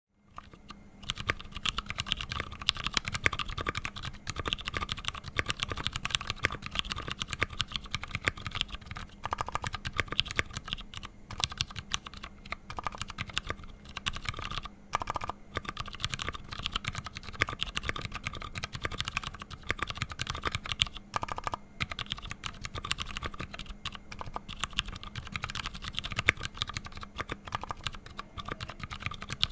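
Steady typing on a custom 60% mechanical keyboard with lubed Ergo Clear tactile switches on 65g springs and GMK keycaps: a fast, continuous run of keystrokes with short pauses, starting just after the beginning.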